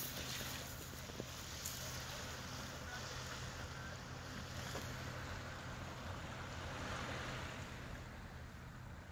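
Seaside ambience by a calm sandy shore: wind on the microphone and small waves on the beach, with a low steady hum underneath.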